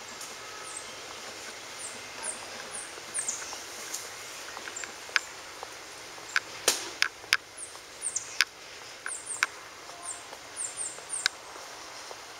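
Small birds calling: runs of short, high, thin falling chirps, with several sharper, louder chip notes through the middle, over steady faint outdoor background.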